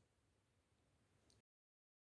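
Near silence: a very faint hiss that cuts to complete digital silence about one and a half seconds in.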